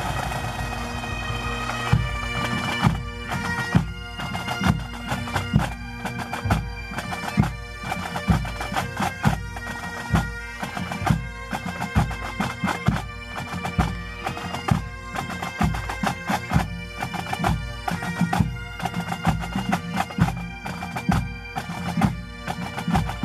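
Highland bagpipes playing a tune over their steady drones, with regular sharp beats keeping time.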